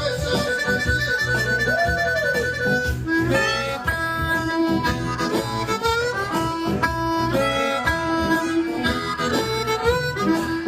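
Blues harmonica playing held and bending notes over a guitar accompaniment with a steady repeating low rhythm.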